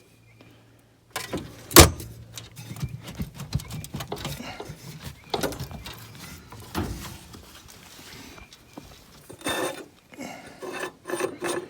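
Metal clanking and rattling as old Rayburn cooker parts are handled: irregular knocks and scrapes, with one loud clank about two seconds in.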